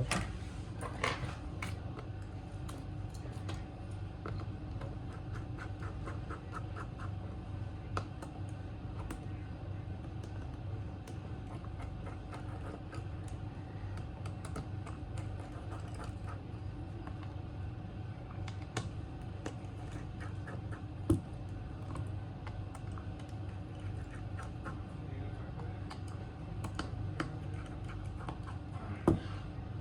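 Small screwdriver clicking and scraping as it undoes the screws inside a Samsung Galaxy A15, with light taps of tools and parts being handled, and two sharper clacks, one about two-thirds of the way through and one near the end. A steady low hum runs underneath.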